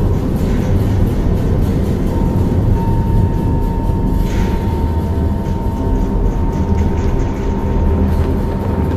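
Deep, steady low drone of Tibetan Bon ritual tantric throat chanting. A thin high overtone holds above it from about two seconds in, and there is a brief hiss about four seconds in.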